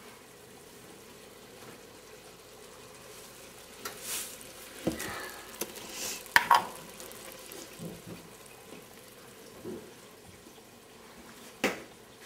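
Metal spoon and spice jars tapping and clinking against a stainless steel pot as salt, sugar and ground spices go into a simmering tomato mixture: scattered sharp clicks and knocks, the loudest clustered around the middle and one more near the end, over a faint frying sizzle.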